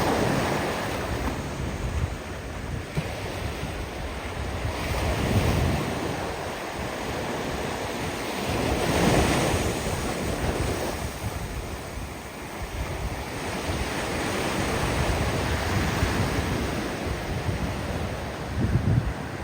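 Ocean surf: waves breaking and washing up the beach as a continuous rush that swells several times, loudest about nine seconds in and again near the end.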